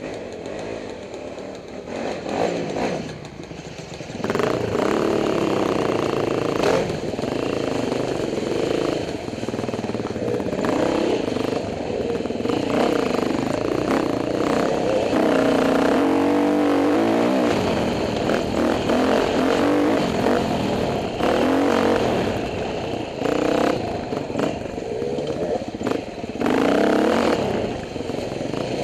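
Dirt bike engine being ridden on a rough trail, revving up and down with the throttle, along with knocks and rattles from the bumps. It gets much louder about four seconds in, once the bike pulls away.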